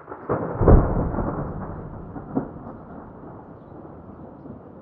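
Thunder: a loud crack less than a second in that rolls into a long rumble, with a second, shorter crack about two and a half seconds in, the rumble slowly dying away.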